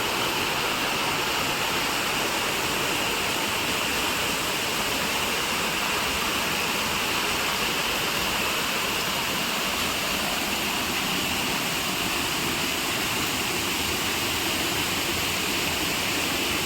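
Waterfall rushing with a steady, unchanging roar of falling water.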